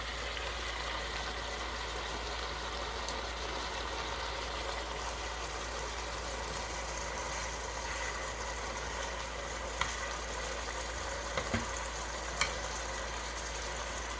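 Mopani worms frying in a pot, a steady sizzle, with a few light clicks in the second half.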